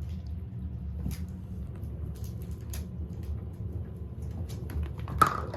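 Kitten suckling formula from a bottle: soft, irregular smacking clicks over a low steady rumble, with one sharper click near the end.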